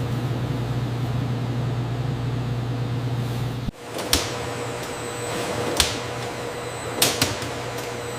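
Food-processing machinery running with a steady low hum. About halfway through it cuts off abruptly, giving way to a lighter, steady machine hum with a faint tone, broken by four sharp clacks.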